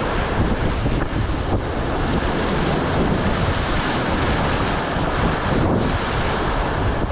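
Steady rush of a river's high-water whitewater rapids churning around an inflatable raft, with waves breaking over the bow and wind rumbling on the microphone.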